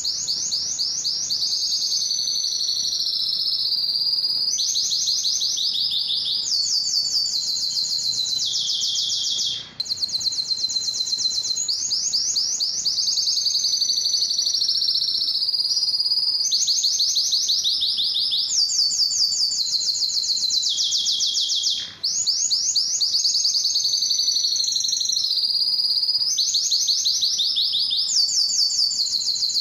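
Male canary singing a continuous song of rapid, high trills, each run lasting a second or two before it jumps to a higher or lower pitch, with two short pauses about ten and twenty-two seconds in.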